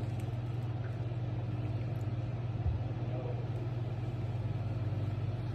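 Steady low mechanical hum, with one short low thump about halfway through.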